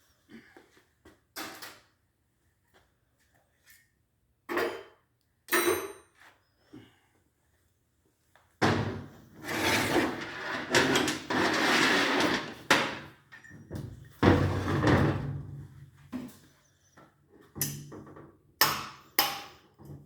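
Metal engine parts knocking and clattering on a workbench as a cylinder head's valve train is taken apart. There are single sharp knocks, then a longer run of busy clatter and scraping through the middle, and a few more sharp knocks near the end.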